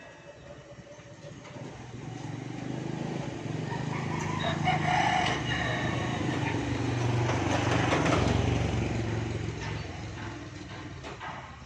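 A motor's low hum swells over several seconds, holds, and fades away near the end, with a rooster crowing about five seconds in.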